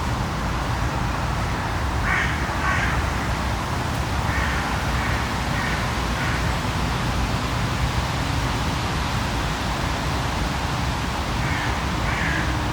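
Bird calls over a steady low rumble of city traffic. The calls come in short groups: two about two seconds in, four evenly spaced a couple of seconds later, and two more near the end.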